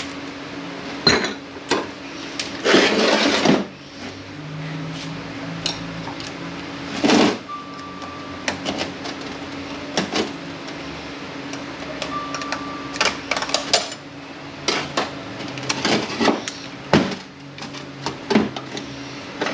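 Metal automatic-transmission clutch-drum parts clinking and knocking as they are handled on a workbench: sharp knocks at irregular intervals over a steady low hum.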